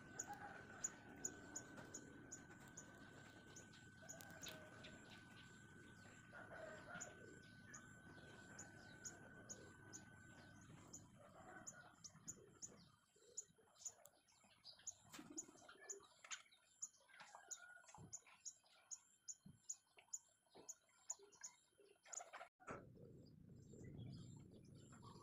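Faint outdoor ambience with birds chirping and a quick, even, high ticking about three times a second.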